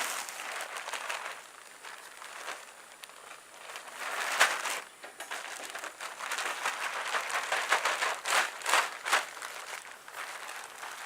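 Rustling and scraping of hands working garden soil while planting cabbage seedlings. It is an uneven stream of scuffs, with a sharper scrape about four seconds in and several more close together around eight to nine seconds.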